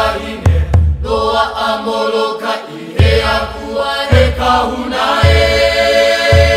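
Background music: Hawaiian chanting voices over a low drum beating roughly once a second.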